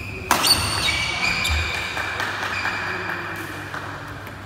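A sharp hit about a third of a second in as a badminton rally ends, followed by shouting and cheering that fade over about three seconds.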